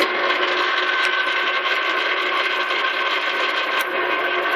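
A small metal lathe switched on with a sharp click, then running steadily with a whine of several steady tones from its motor and gearing as it spins the skate wheel on its arbor.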